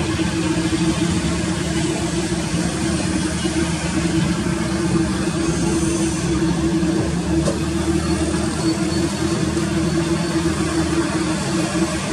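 Boeing 787 airliner's twin turbofan engines running at low thrust as it taxis along a wet runway: a steady rumble with a constant droning tone.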